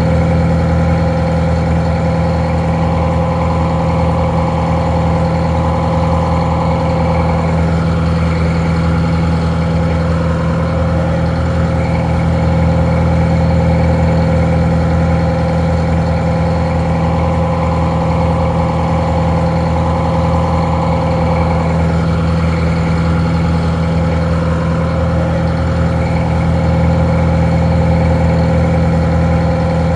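Detroit Diesel 4-71 two-stroke, four-cylinder diesel engine idling steadily, sounding a little muffled.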